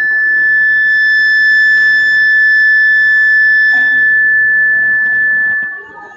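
Public-address microphone feedback: a loud, steady high-pitched whistle on one pitch that holds for nearly six seconds and cuts off near the end.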